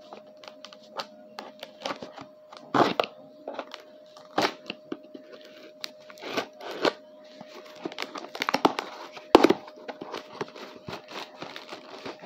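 Packaging being opened by hand: irregular tearing and crinkling with scattered clicks and taps, a busier stretch of rustling and one sharp click about nine seconds in. A faint steady hum sits underneath.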